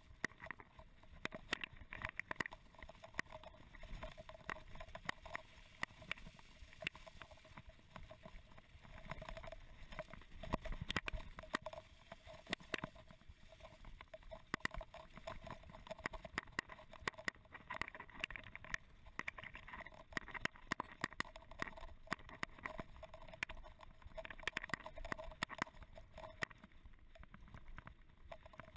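Mountain bike rolling fast over a rough, leaf-strewn dirt track, the bike and camera rattling with dense, irregular knocks and clicks from the bumps over a steady rumble of tyres on the ground.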